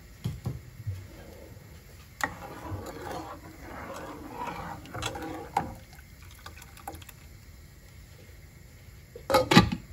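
Steel ladle stirring thin rasam in a nonstick pot: liquid sloshing and swirling, with light clinks of the ladle against the pan. A short, loud clatter of metal on the pot near the end.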